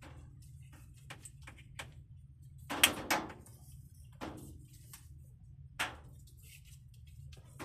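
Irregular knocks, clicks and clatter of things being handled and moved, the loudest pair about three seconds in, over a steady low hum.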